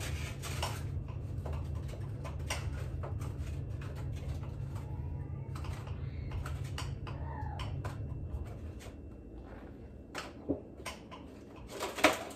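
Light clicks and taps of egg carton and shells handled at a kitchen counter, over a low hum that stops about two-thirds of the way through. One sharper knock comes near the end.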